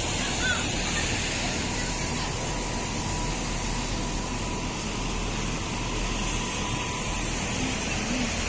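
Steady traffic noise of cars and school buses driving through standing rainwater on a wet road, tyres swishing through the water.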